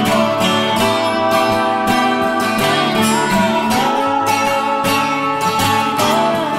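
Background music led by strummed acoustic guitar, with a steady strumming rhythm and a few sliding notes.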